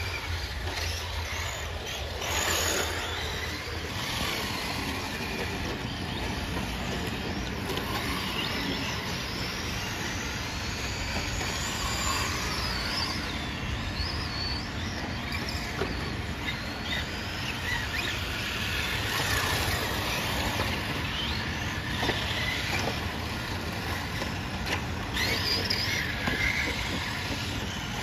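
Several electric radio-controlled cars racing on a dirt track, their motors whining in overlapping pitches that rise and fall as they accelerate and brake.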